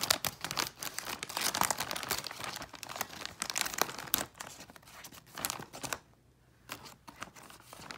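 White plastic poly mailer bag crinkling and crackling as it is handled and cut open with scissors. The noise dies down about six seconds in, leaving a few scattered rustles.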